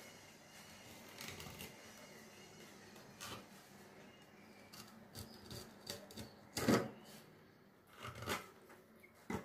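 Knife slicing along a perch on a plastic cutting board: scattered short clicks and scrapes as the blade works through the fish and taps the board, the loudest about two-thirds of the way through.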